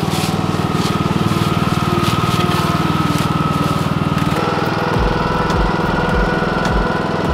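John Deere riding lawn tractor's engine running steadily while towing a cart loaded with concrete blocks. Dull low thumps come every half second or so through the second half.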